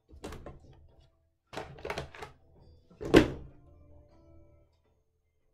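Clacks and knocks of a plastic make-up palette being handled, a few short ones and then a louder thunk about three seconds in.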